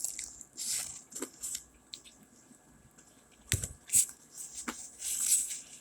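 Close-up eating sounds of Popeyes fried chicken being chewed: irregular crackly crunching and wet mouth noises, with a few sharp clicks a little past halfway.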